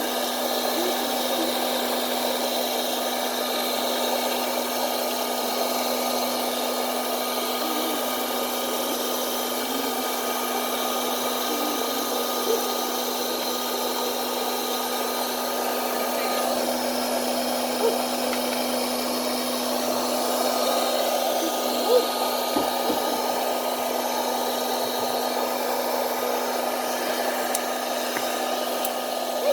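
Hot-air popcorn popper running: a steady blowing hum from its fan and heater. A few single sharp pops, spread out, as the first kernels start to pop.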